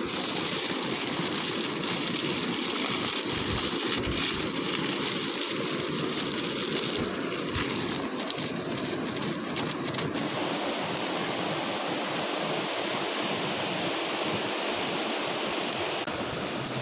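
Aluminium foil crinkling and rustling as it is folded and crimped around food, with crackles that stop about ten seconds in, over a steady rushing noise.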